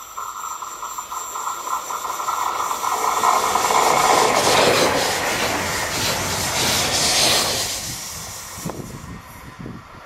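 Stadler Flirt electric multiple unit passing close by at a station platform. Its rail and running noise builds to a loud peak around the middle and then fades, with a steady whine at the start.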